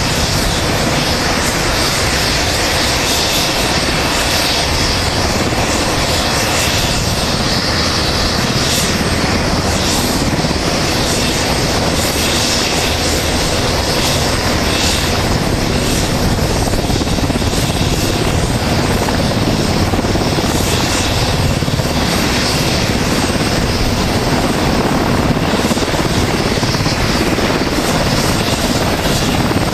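UH-60 Black Hawk helicopters running: loud, steady turbine whine over dense rotor noise from their twin turboshaft engines and rotors.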